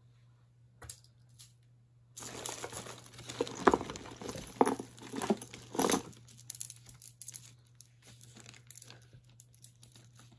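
Packaging crinkling as it is handled: a loud stretch of crinkling with sharp crackles starts about two seconds in and lasts about four seconds, then eases into softer rustling and small clicks.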